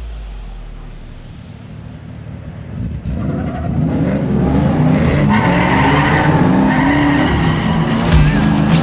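Drift car engine revving hard, its pitch rising and falling as the throttle is worked, with tyres squealing as the car slides sideways. It builds from a quieter rumble to full volume about three seconds in.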